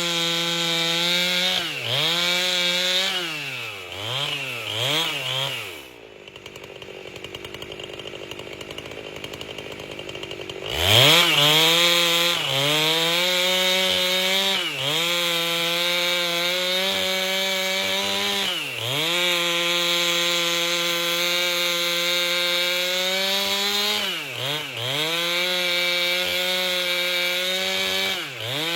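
Two-stroke chainsaw with a 30-inch bar ripping lengthwise through an albasia log at full throttle, its pitch dipping and recovering every couple of seconds as the cut loads the engine. About six seconds in it drops to idle for some five seconds, then revs sharply back up and carries on cutting.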